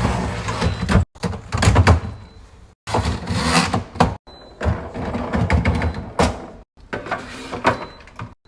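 Knocks, clicks and clatter of containers and items being set down and moved in a fridge, in short stretches that cut off abruptly several times.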